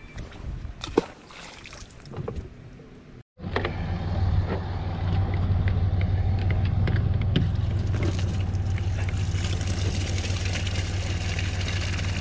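A few light clicks and knocks as a small bass is unhooked by hand. After a cut, a steady low machine drone takes over, and toward the end water splashes into a mesh weigh-in bag.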